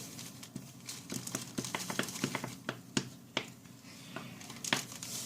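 Scattered small clicks and taps of plastic containers and utensils being handled while borax solution is poured into slime glue, coming irregularly a few times a second.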